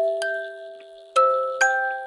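Instrumental music: a slow melody of bell-like struck notes, each ringing on after it is hit, about two a second, with a pause of about a second midway.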